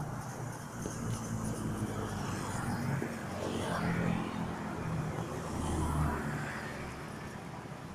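Cars driving past close by, their engines and tyres swelling as each one passes. The pass-bys are loudest about four and six seconds in.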